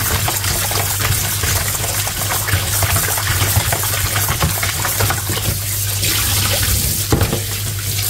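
Kitchen tap running into a plastic bowl in a stainless steel sink while hands swish and rub cut pieces of baim fish (spiny eel) in the water, rinsing off a salt-and-turmeric rub. A steady low hum runs underneath.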